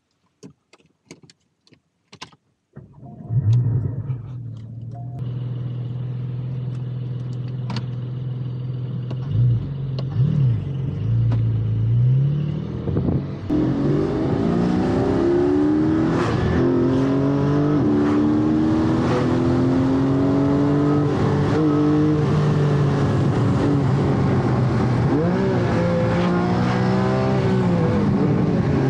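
A few clicks, then a Porsche Cayman GT4's flat-six engine starts about three seconds in, heard from inside the cabin. It settles into a steady idle with a couple of short throttle blips, then pulls away around twelve seconds in and runs under load, its pitch rising and dropping through the gears.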